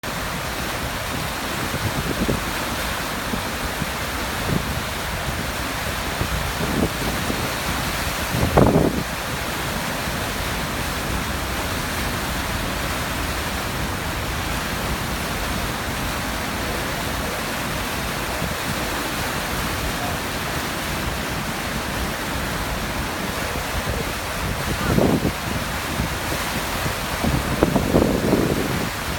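Niagara Falls, the steady rush of a large waterfall's falling water. A few brief louder swells come about 8 seconds in and twice near the end.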